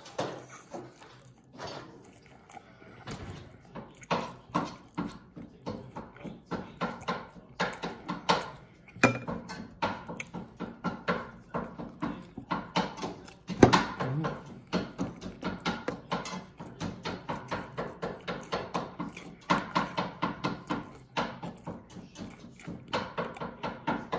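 Close-miked chewing of crispy teriyaki chicken: a steady rhythm of about three chews a second, with two sharper knocks partway through.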